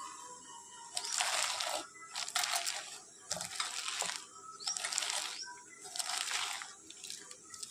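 Fresh spinach leaves being pressed and tossed by hand with gram flour in a steel bowl: five rustling strokes about a second apart.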